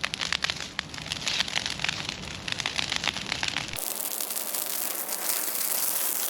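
A dry bush burning in the open, crackling with dense, irregular pops. About four seconds in the low rumble cuts out abruptly and the crackle turns thinner and hissier.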